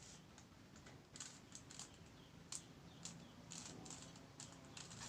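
A 3x3 Rubik's cube being turned by hand: quick, irregular plastic clicks as its layers are rotated.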